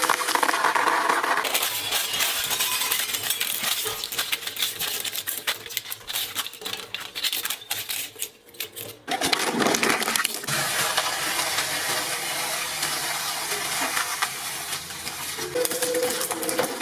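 Industrial shredder blades crushing an Infinity Gauntlet of metal and stones: a dense, continuous run of cracking and clinking, with a brief lull about eight seconds in before the crunching starts again.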